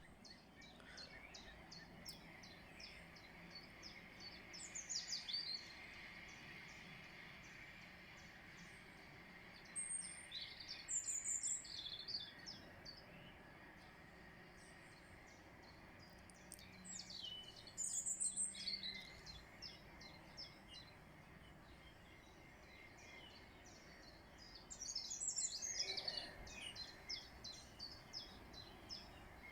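Wild songbirds singing: a run of short, high chirps goes on throughout, with louder song phrases breaking in about every seven seconds over a steady faint background noise.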